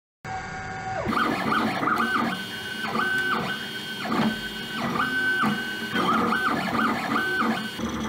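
3D printer stepper motors whining as an axis moves back and forth, the pitch ramping up, holding and dropping again in repeated short strokes.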